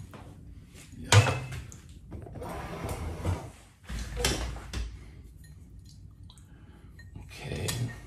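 Handling noises: knocks, scrapes and rustles in four short bursts, about a second in, around three and four seconds in, and near the end, as a wooden wick-centering bar is picked up and fitted over a candle jar on a tray.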